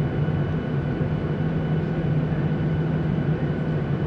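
Steady cabin noise inside a jet airliner taxiing, with the engines at low power: an even rumble carrying a strong low hum and faint steady high tones.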